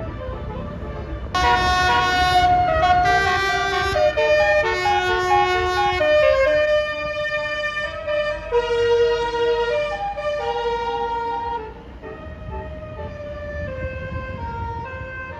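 A bus's Basuri telolet horn, a multi-tone air horn, playing a quick tune of stepped notes over the bus's engine rumble. The tune starts loud about a second in and drops quieter near the end.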